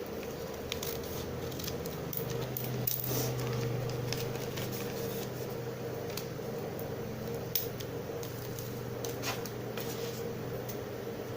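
Scissors snipping, a scattering of short sharp cuts and clicks over a steady low hum.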